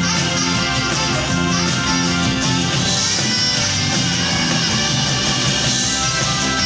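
Live band playing a song at full volume, the music steady throughout.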